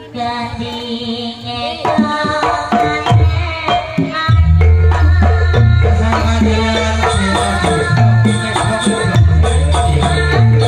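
Live Banyuwangi-style jaranan gamelan music played through a sound system: kendang hand drums beating under ringing gong-chimes and metallophones. A heavy deep bass comes in about four seconds in.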